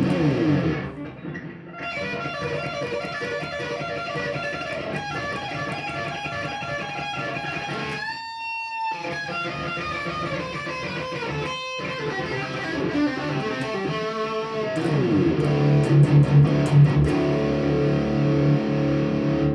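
Electric guitar played through a Boss Katana 50 MKII amplifier's lead channel, plugged straight into the amp: a run of single-note lead lines. About halfway through comes one held note with vibrato, and louder low riffing follows near the end.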